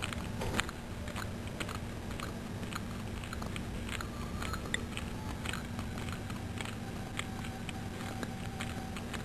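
Cat lapping milk from a plate: short wet tongue clicks, about three a second, over a steady low hum.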